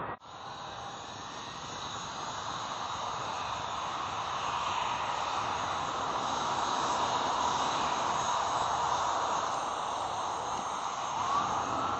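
Jet airliner's engines, a steady rush with a faint high whine, growing louder over the first several seconds and then holding.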